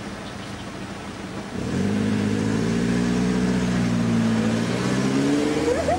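Vehicle engine running steadily, then speeding up under load a couple of seconds in, louder and with its pitch rising steadily as the vehicle accelerates.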